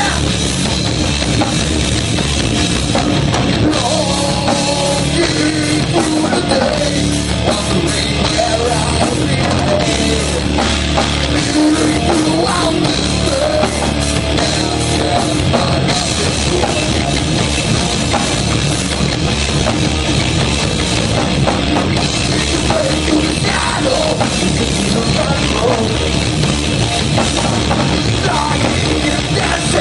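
Metal band playing live: distorted electric guitar, bass guitar and drum kit at a steady, loud level, with the singer's vocals over them.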